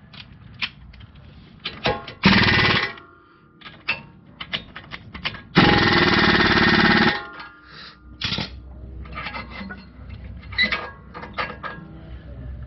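Impact wrench hammering the brake line bolt into the caliper in two bursts: a short one about two seconds in, then a longer run of about a second and a half near the middle. Tool and parts clatter in between.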